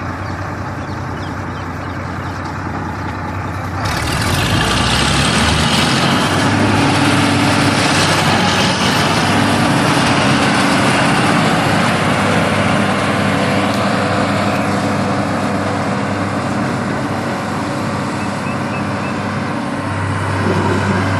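Combine harvester running. About four seconds in, the sound abruptly gets louder and a strong hiss joins the engine note, then stays up steadily.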